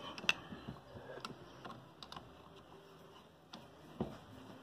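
Scattered light clicks and taps of a screwdriver and small parts on a Ford Jubilee tractor's carburetor as it is put back together, its screws being run in by hand.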